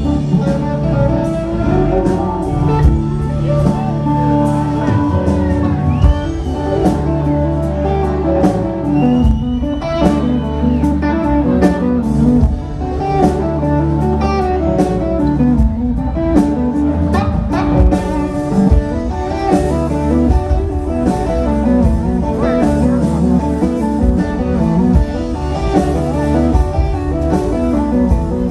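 Southern rock band playing live, an instrumental passage of electric guitars over drums, loud and steady.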